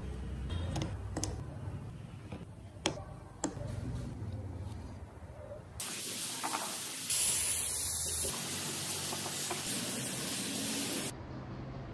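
A compressed-air spray gun hissing steadily. It starts abruptly about six seconds in and stops shortly before the end. Before it, a few light taps of carved wooden wheel rims being set into wooden tyres.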